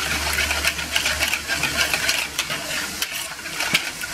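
Hand whisk beating a runny egg, grated cheese and cream mixture in a plastic bowl: quick, even strokes that slosh the liquid and click and scrape against the bowl's sides.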